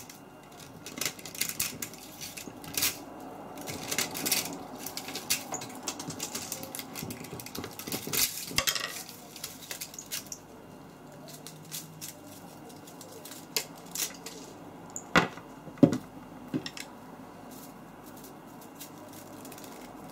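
Metal clinking and scraping as cut copper windings are pulled out of an electric motor, busy and irregular at first, then quieter with a handful of sharp clinks.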